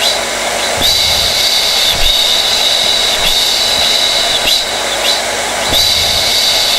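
Hair dryer running steadily: rushing air with a high motor whine. The whine dips briefly about every second and a quarter.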